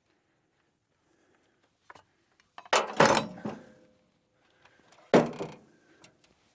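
Two heavy thuds. The first comes about three seconds in, a double hit with a short ringing tone after it; the second comes about two seconds later.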